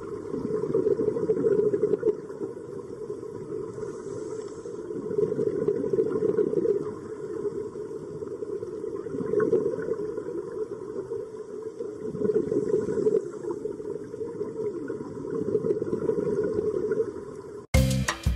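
Muffled underwater ambience: a low rumbling wash of water that swells and fades every few seconds, with a faint steady tone above it. Music cuts in abruptly near the end.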